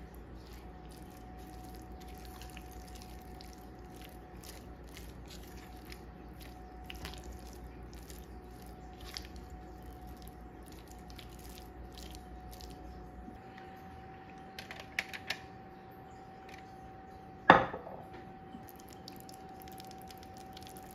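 Silicone spatula mixing raw ground chicken with egg and spices in a glass bowl: soft wet squishing with light scrapes and small clicks. A few quick clicks come about two-thirds of the way in, then a single sharp knock, the loudest sound.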